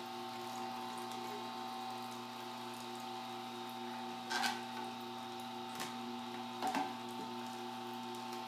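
Horizontal slow masticating juicer's motor running with a steady hum as grapefruit pieces are pushed down its feed chute with the plunger. A few short knocks sound about four and a half, six and nearly seven seconds in.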